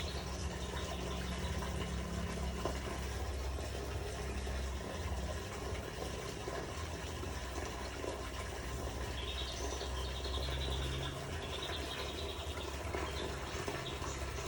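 Steady running water, with a low hum underneath.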